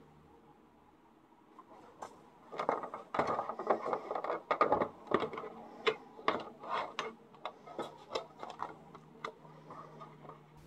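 Hands handling the plastic Frisk Keep Wet palette and lifting off its lid: an irregular string of clicks, knocks and rustles that starts a couple of seconds in.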